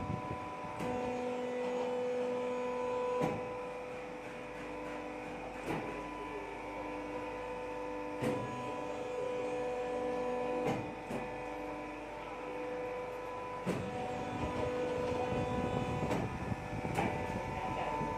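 Hydraulic press brake's power pack running: a steady electric-motor and pump hum with a high, even whine. A dozen short clicks or knocks sound over it, every few seconds.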